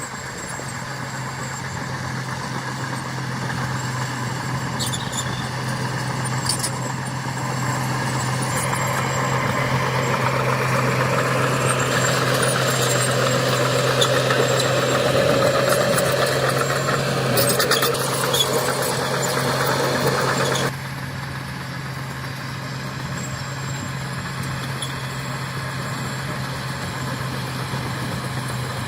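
Diesel engine of heavy earthmoving machinery running steadily. It grows louder through the first two-thirds, drops suddenly just past two-thirds of the way through, and carries light high clicks and squeaks.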